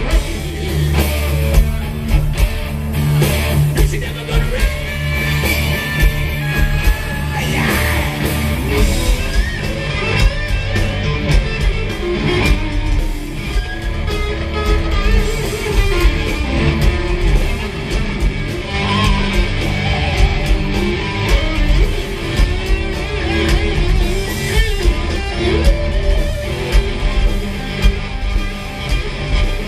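Live rock band playing loudly: electric guitars over bass and drums, heard from the audience.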